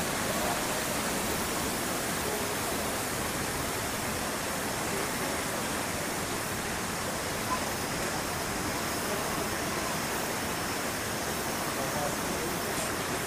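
Steady outdoor background hiss with faint, indistinct voices of people talking in the background.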